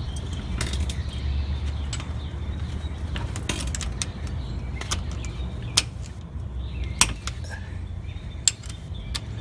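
Scattered sharp metal clicks and clinks of a ratcheting wrench working an axle-to-differential flange bolt, over a steady low hum.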